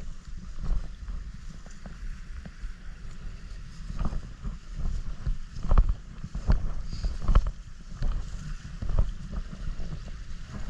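Wind buffeting the microphone in a steady low rumble, with irregular dull thumps, several louder ones in the middle.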